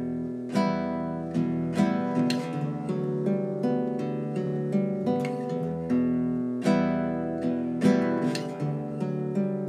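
Background music: acoustic guitar playing plucked and strummed chords.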